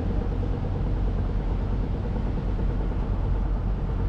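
Tour boat's engine running steadily: a low, even hum under a steady rushing noise.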